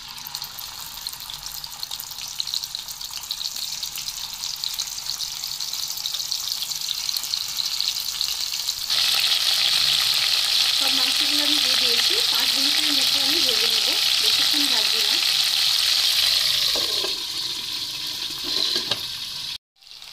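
Chicken pieces frying in hot mustard oil in a kadai: a steady sizzle that jumps louder about halfway through and eases slightly near the end.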